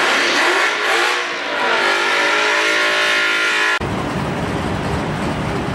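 Drag-racing car engine at high revs accelerating down the strip, heard from afar, its pitch rising and shifting. About four seconds in it cuts abruptly to the low, heavy rumble of a car doing a burnout, engine running hard with spinning tyres.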